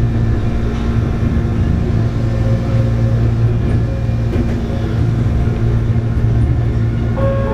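Shizuoka Railway 1000-series electric train running along the track, heard from inside the driver's cab: a steady low hum of motors and wheels on rails. A steady higher tone begins near the end.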